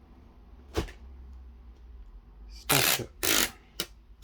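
A single sharp click about a second in and another short click near the end, from handling the phone and its cardboard packaging.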